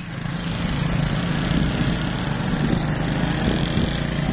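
Small motorcycle engine running steadily while riding along a sandy dirt track.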